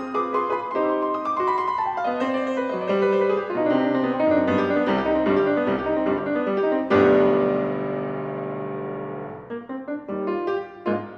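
Steinway grand piano played solo: quick runs of notes, then a loud chord struck about seven seconds in that is held and rings away, followed by short detached chords near the end.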